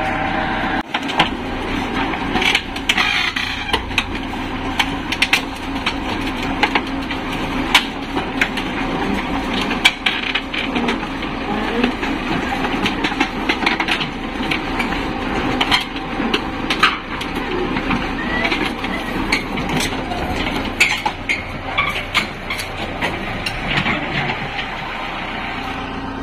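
Mini crawler excavator driving down off a truck bed over steel loading ramps: its steel tracks clank and knock irregularly against the bed and ramps, with its engine running steadily underneath.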